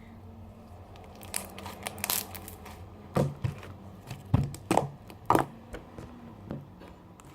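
Hands squeezing and stretching slime made from white and clear glue, giving irregular sticky clicks and pops.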